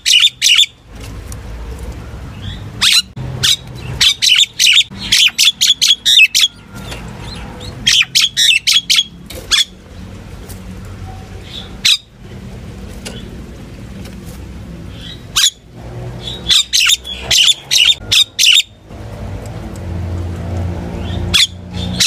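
Common myna singing its flock-calling song: loud clusters of rapid, short chattering and whistled notes, each cluster lasting one to two seconds, with pauses of a few seconds between.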